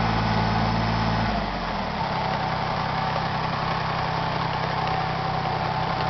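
Kubota tractor-backhoe's diesel engine running, its speed dropping about a second and a half in, then idling steadily.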